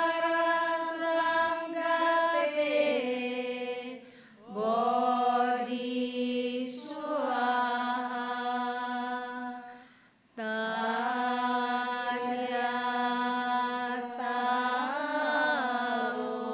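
Group of Buddhist nuns and laywomen chanting in unison. They hold long, sustained notes in three phrases, with short pauses for breath about four seconds in and again about ten seconds in.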